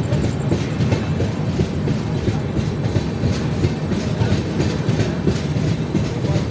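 Train rolling into the station: a steady loud rumble of the railway cars with wheels clacking over rail joints.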